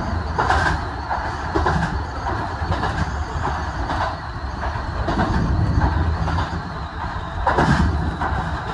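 Kintetsu 2000 series electric train running along the track, heard from inside the driver's cab: a steady low rumble from the wheels and running gear, with a few short clatters scattered through it.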